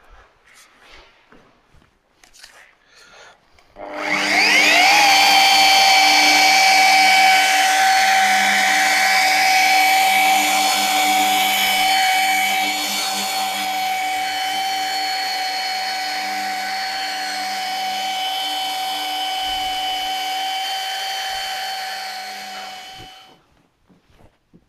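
Rotary car polisher with a foam pad polishing car paint. About four seconds in it spins up with a quick rise in pitch, then runs with a steady whine, and near the end it cuts off suddenly.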